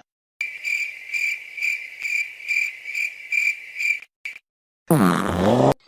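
Cricket chirping sound effect, the stock meme cue for an awkward silence: a high chirp repeating about twice a second for a little over three seconds. Near the end a different short effect with a bending pitch comes in for under a second.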